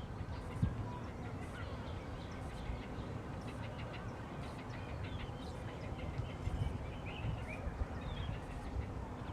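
Outdoor background: a steady low rumble with a few faint, short bird chirps scattered through.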